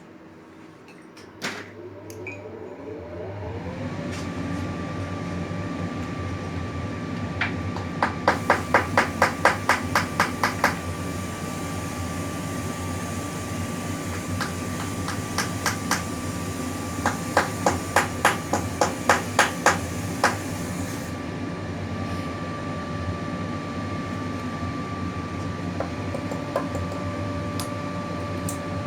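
Rapid light hammering on metal in two runs of evenly spaced strikes, about four or five a second, over the steady hum of an electric motor that starts and spins up about two seconds in.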